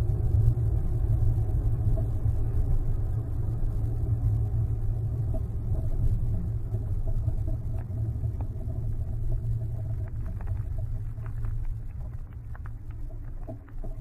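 Dodge Nitro SUV driving on a snow-covered road, heard from inside the cabin: a steady low rumble of engine and tyres. A few faint clicks and ticks come through in the last few seconds.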